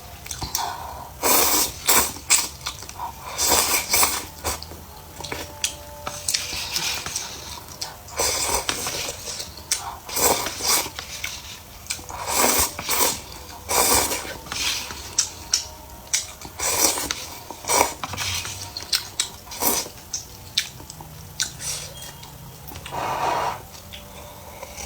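A person chewing and biting food close to the microphone, with irregular loud mouth sounds coming in quick clusters with short pauses between them.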